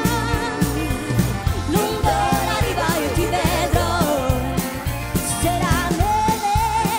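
A woman singing lead into a microphone over a pop band with a steady drum beat, with winding vocal runs in the middle and a long held note near the end.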